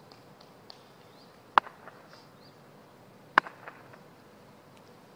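Wooden cricket bat tapped on asphalt: two sharp knocks about two seconds apart, each followed by one or two smaller knocks.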